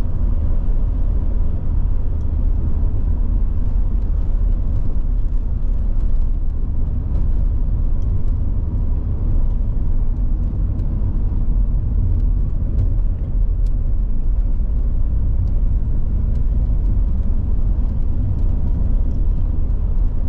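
Volvo 740 GL driving at a steady speed: a constant low rumble of engine and road noise with no revving or gear changes.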